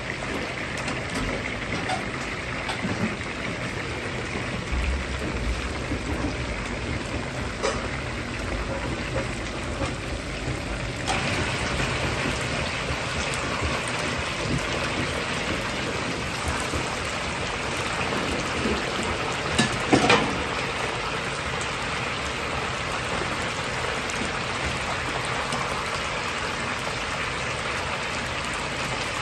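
Battered chicken thigh pieces deep-frying in a large wok of hot oil: a dense, steady crackling sizzle like rain, over a low steady hum. The sizzle grows louder and brighter about eleven seconds in, and a few sharp clicks and a brief clatter come about two-thirds of the way through.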